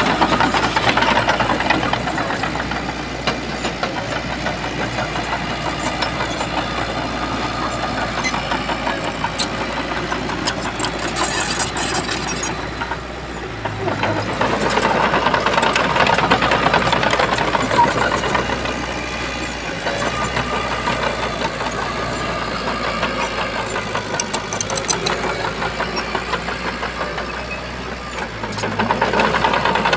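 Diesel engine of a Shantui bulldozer running under load as it works sand. The engine rises and eases in cycles, pulling harder about halfway through and again near the end.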